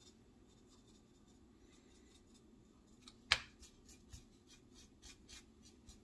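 Faint scratching of a nearly dry paintbrush stroked back and forth over a scribed plastic model deck in dry brushing, with one sharp tap a little past halfway.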